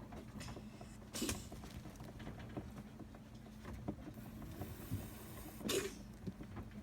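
An animal with a breathing problem breathing noisily: two loud breaths about four and a half seconds apart, with faint clicks in between.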